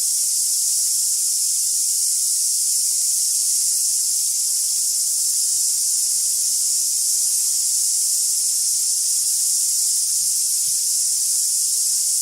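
Loud, steady, high-pitched chorus of cicadas shrilling without a break.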